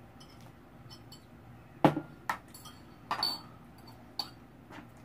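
Eating utensils clinking and knocking against a bowl of noodle soup, about seven separate strikes with the loudest about two seconds in, some ringing briefly.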